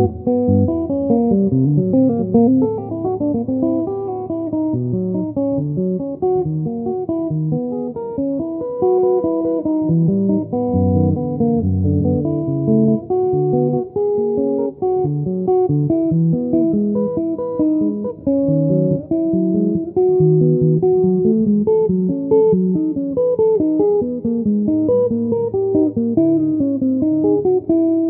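Solo headless electric guitar played with a clean tone: a flowing stream of plucked single notes over low bass notes.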